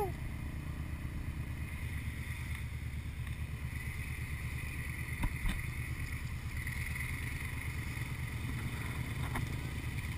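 ATV engine running steadily at low revs, with a couple of short knocks about five seconds in.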